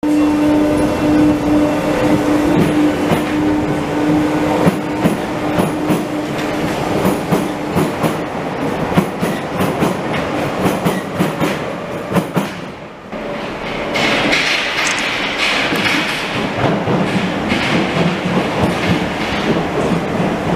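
Paris Métro trains running through stations. The first passes with a steady hum at the start and a run of rapid clicks and clatter from the wheels. After a short break a second train moves along a platform with a louder, higher hissing rumble.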